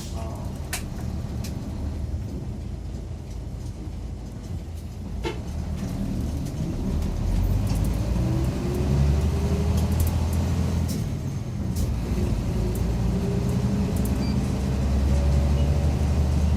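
Mitsubishi Fuso Aero Midi MK bus's diesel engine running under way, heard inside the cabin. The engine note climbs as the bus accelerates, drops at a gear change about ten seconds in, then climbs again; a few light clicks and rattles come through.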